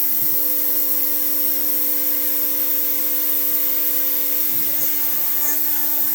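DIY CNC machine's spindle running steadily while milling, a constant hum with a hiss above it. Background music plays over it.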